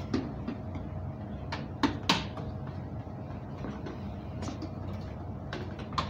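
Several sharp clicks and knocks of hard plastic being handled over a steady low hum. The loudest pair comes about two seconds in.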